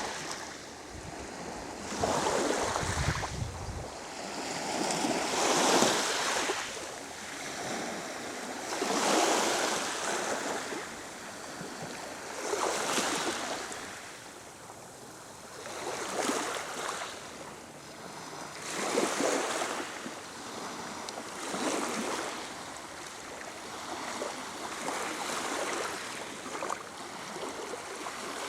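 Black Sea waves breaking on the shore, each wash of surf swelling and fading about every three to four seconds. A low rumble sits under the surf near the start.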